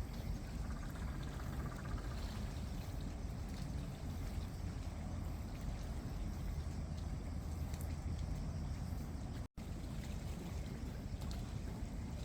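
Steady noise of rain and sea water with a low rumble, cutting out for a moment about nine and a half seconds in.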